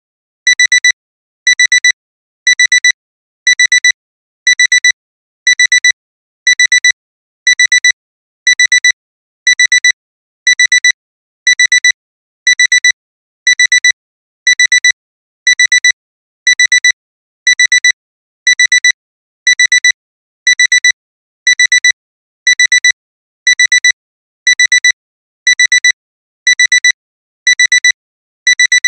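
Alarm clock's electronic alarm beeping: a high beep-beep pair repeating about once a second without pause. This is the continuous alarm that signals the end of the timer countdown.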